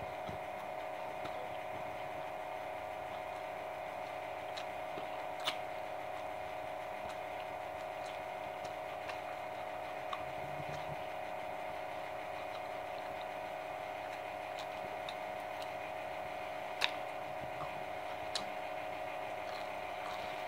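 Steady electrical-sounding hum of room noise, with a few faint sharp clicks, the clearest about five and a half and about seventeen seconds in.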